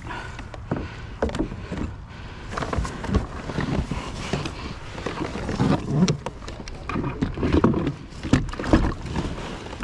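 Paddle and gear being handled in a plastic fishing kayak: irregular knocks, clunks and rattles against the hull, spread unevenly through the stretch.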